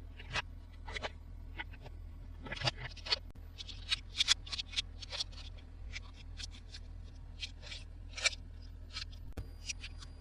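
Hands handling plastic toys and packaging: irregular light clicks, taps and crinkles, busiest in the first half, over a faint steady low hum.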